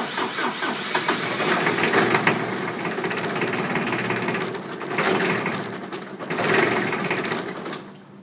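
John Deere 4100 compact tractor's three-cylinder diesel being cranked by its starter on a cold start, with an even rhythmic chugging. It fires in several brief louder surges that don't catch, then dies down near the end. This is hard cold starting that the owner puts down to weak glow plugs.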